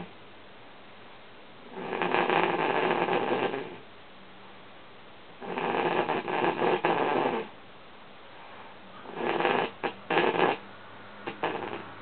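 A woman snoring in her sleep: three long snores about four seconds apart, the third broken up into short choppy pieces, with faint hiss between them.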